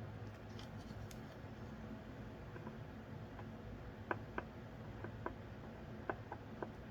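Small light clicks and taps of soldering work on a circuit board: solder and tools being handled at the pins. There are a few faint ticks at first, then about seven sharper clicks over the last three seconds, over a low steady hum.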